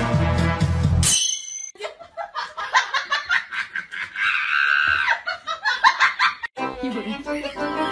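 Laughter: quick runs of short 'ha' pulses with a longer high squeal in the middle, coming after a burst of music that cuts off about a second in. Accordion music starts near the end.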